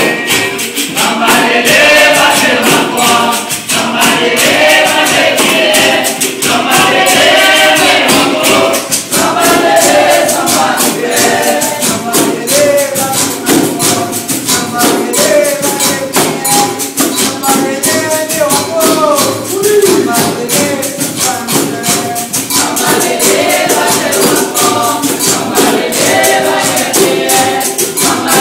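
Live capoeira roda music: berimbaus and a pandeiro keeping a fast, steady rhythm while a group sings along.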